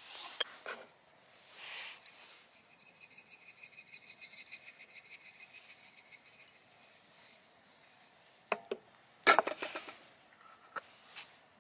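A seasoning shaker worked over raw steaks, giving a run of fast fine rattling clicks for about five seconds. A few sharp knocks and clinks follow near the end, the loudest a little after nine seconds in.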